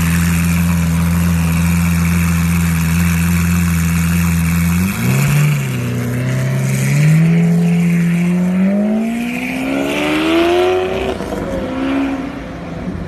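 Lamborghini Aventador LP700-4's V12 through an Armytrix valved exhaust, idling steadily with a low drone, then pulling away about five seconds in. Its note climbs steadily as the car accelerates, breaks near the end and grows quieter as the car moves off.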